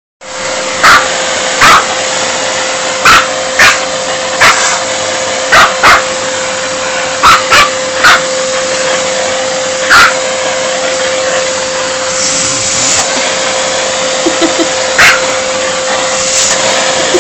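Vacuum cleaner running steadily with a constant whine, while a small dog barks at its hose nozzle: about a dozen short, sharp barks, most in the first ten seconds and one more a few seconds before the end.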